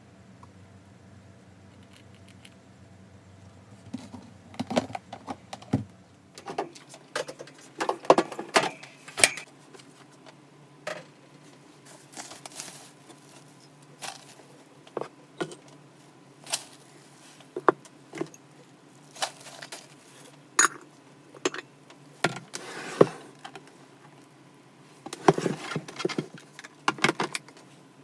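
Handling of a hamster's plastic enclosure with its paper bedding and sand: intermittent rustling and light clattering in short bursts, with sharp clicks between, over a low steady hum.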